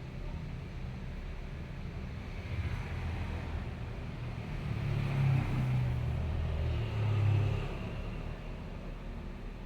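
A man snoring in deep sleep: three low snores about two seconds apart, each with a breathy hiss, the second and third loudest, over a steady low hum.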